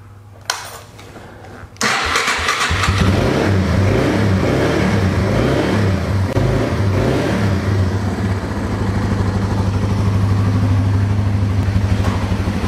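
Yamaha TW200's single-cylinder four-stroke engine starting: it fires about two seconds in and runs unevenly for several seconds, then settles into a steady idle.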